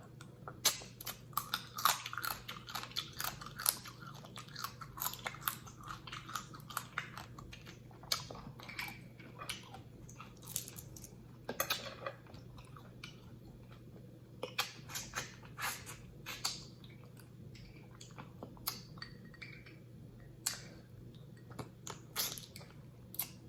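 Close-miked eating of a sauced seafood boil: wet chewing with irregular crunches and clicks scattered throughout. A faint steady low hum sits underneath.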